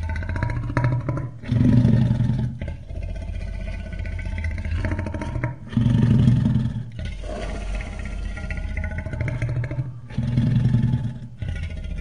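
Tarbosaurus growl sound effect: a low, pitched growl that swells three times, about four seconds apart.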